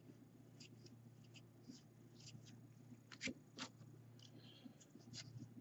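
Very faint rustles and light ticks of baseball trading cards being handled and slid against each other, with two slightly louder clicks a little past halfway, over a low steady hum.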